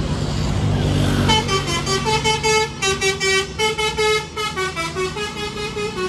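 A bus's telolet musical air horn playing a quick tune of short stepped notes, starting about a second in, over the low running of the coach's engine as it passes.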